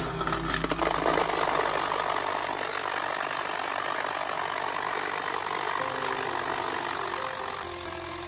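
A steady rushing, hissing mechanical noise that starts abruptly with a few clicks, with background music faint beneath it.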